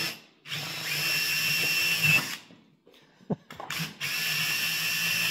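DeWalt 20V cordless impact driver spinning a drill bit through a metal roof panel, with a steady motor whine. It runs for about two seconds, stops, and after a click starts drilling again about four seconds in.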